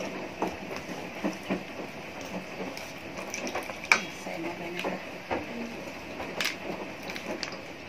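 Metal spoon stirring pancake batter in a stainless steel bowl, clinking and scraping against the bowl in irregular strokes, with one sharper clink about four seconds in.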